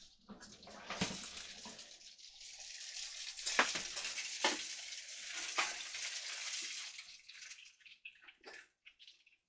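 Olive oil sizzling on a foil-lined baking tray of roasted butternut squash halves, just out of a hot oven, with a few sharp knocks as the tray is pulled out and set down. The sizzle fades away over the last couple of seconds.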